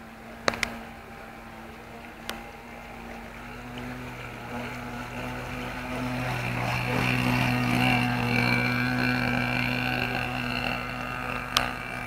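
Small nitro glow engine of a radio-controlled model pilot boat running at a steady pitch, growing louder as the boat passes close about halfway through. A few sharp clicks come near the start and near the end.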